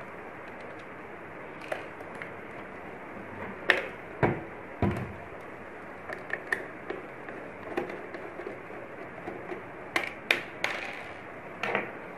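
Scattered knocks and clicks of a Sanyo projector's casing being handled and turned over on a wooden table while its side screws are undone, over a steady background hiss. The loudest knocks come about four seconds in and again around ten seconds.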